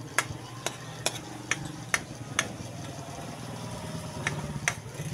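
Metal spatula clacking and scraping against a wok while stirring garlic frying in oil, sharp clicks about twice a second at first, fewer near the end. A steady low hum runs underneath.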